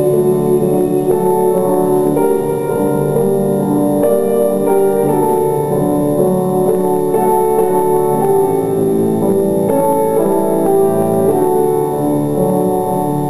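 Grand piano playing classical music: a continuous flow of chords and running notes.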